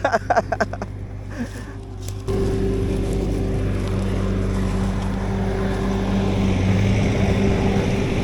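Skid steer engine running steadily, its drone stepping up sharply louder about two seconds in and holding there.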